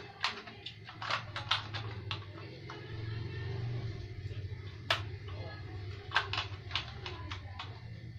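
Plastic parts of a cheap VR headset clicking and knocking as they are handled and fitted together, in irregular sharp clicks with one louder snap about five seconds in, over a low steady hum.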